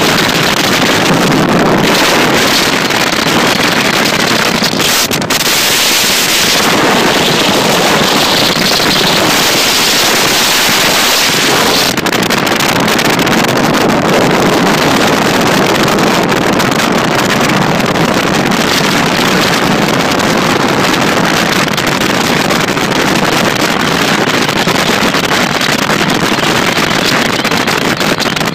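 Steady rush of wind on the microphone of a Champion bass boat running at speed across the water, with its Mercury outboard motor running beneath.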